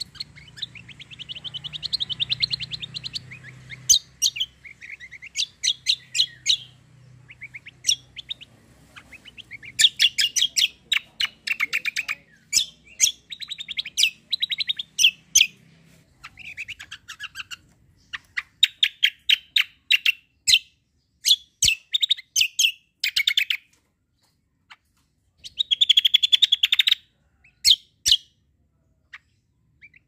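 Caged kecial kombo songbird singing in bursts of very rapid rolling trills and sharp chirps, with short pauses between phrases.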